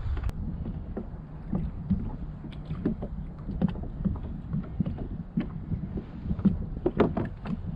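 Small irregular knocks and taps on a kayak, with water lapping against the hull and a low rumble of wind. A louder pair of knocks comes about seven seconds in.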